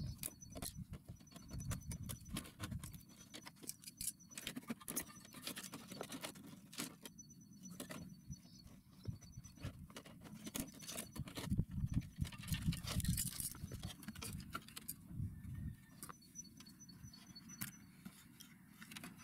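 Irregular small clicks, taps and rattles of screws, a screwdriver and metal and plastic parts being handled while an old CRT television is dismantled.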